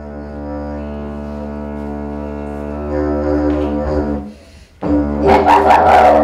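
Wooden didgeridoo played by a boy: a steady low drone that swells a little about three seconds in, stops for half a second just after four seconds in, then comes back louder with a quick pulsing rhythm.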